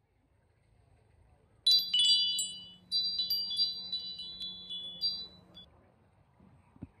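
Bright tinkling chimes: a cluster of high bell-like notes struck about two seconds in and again about a second later, ringing down over a few seconds.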